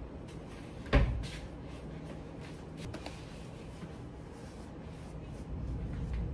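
A single sharp knock about a second in, then a few faint clicks and handling sounds.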